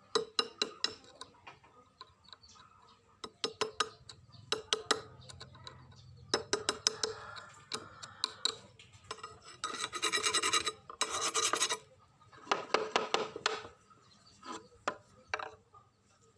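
Hand filing: a series of short rasping strokes and clicks, then two longer runs of continuous filing about ten and twelve seconds in.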